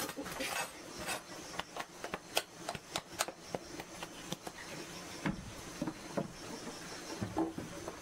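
Irregular scraping and light knocking, a string of short strokes and clicks at uneven intervals, like hand work on a hard surface.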